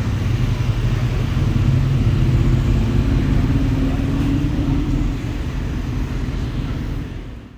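Steady low rumble of a running vehicle, which stops abruptly near the end.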